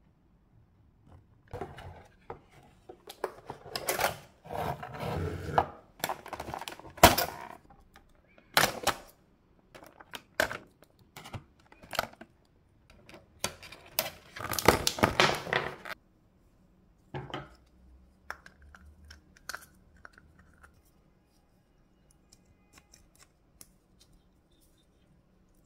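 Clear plastic toy packaging crinkling and clicking in irregular bursts as figures are pulled out of their moulded plastic insert, thinning out to a few scattered clicks in the second half.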